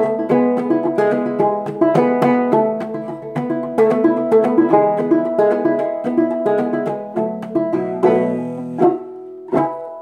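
Fretless gourd banjo played clawhammer style: a quick run of plucked notes that thins out near the end into two last struck chords, left ringing and fading.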